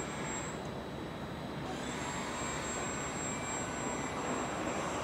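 Steady rushing hum of machinery and air, with a faint high whine that drops out briefly near the start and returns about two seconds in.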